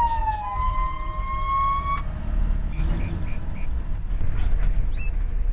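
Vehicle siren wailing inside the van's cabin, one tone gliding slowly down and back up, then cutting off sharply about two seconds in, leaving engine and road rumble.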